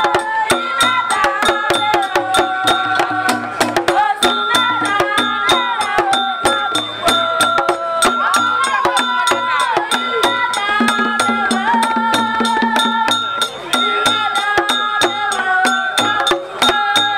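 Traditional Itsekiri drumming and singing: voices singing a song over hand drums and a fast, unbroken clatter of sticks striking small hand-held percussion instruments.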